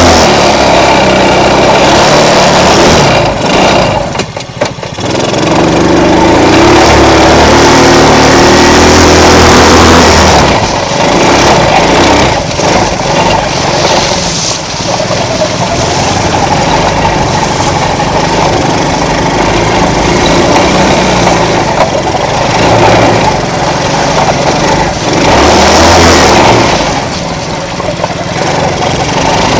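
Small mini ATV engine running under load, its revs rising and falling as the throttle is opened and eased off, with a brief drop in revs about four seconds in.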